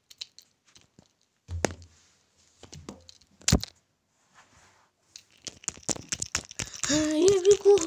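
Handling noise on a phone's microphone: scattered taps and a couple of knocks, then dense rustling and clicking near the end, with a short wavering tone around seven seconds in.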